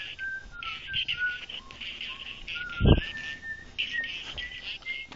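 Whistling: a single high tone hopping and sliding from note to note in short phrases, over a steady hiss. There is a thump about three seconds in.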